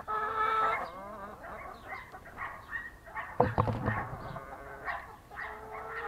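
A flock of hens clucking and calling, eager for their morning feed: a drawn-out call in the first second and another near the end, many short clucks in between, and a single knock about three and a half seconds in.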